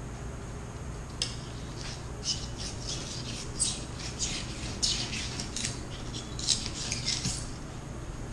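Knife slicing a blacktip shark fillet away from its tough skin: a run of short, irregular scraping strokes beginning about a second in, over a steady low hum.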